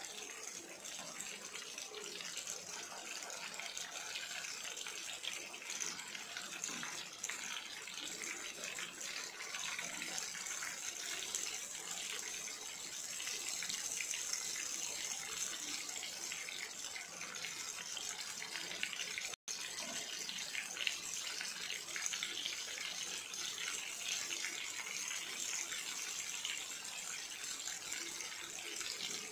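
Batter-coated purnam burelu deep-frying in hot oil, a steady dense sizzle and crackle of bubbling oil around the dumplings. It cuts out for an instant about two-thirds of the way through.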